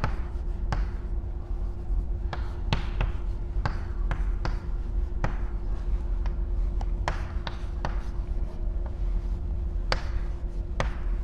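Chalk tapping and scraping on a chalkboard as letters and bond lines are written: a string of short, sharp, irregular taps, over a steady low hum.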